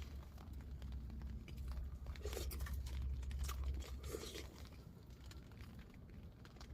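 Wind buffeting the tent and microphone as a heavy low rumble that eases off about two-thirds of the way through, with scattered crinkling and crackling rustles in the middle.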